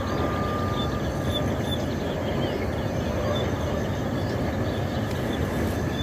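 Steady low outdoor rumble, with a few faint, high bird chirps over it.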